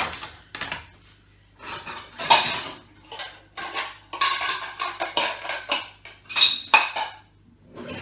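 Dishes clattering and knocking together as plastic plates and bowls are lifted out of a dishwasher's racks and stacked, in uneven bursts with a short lull about a second in.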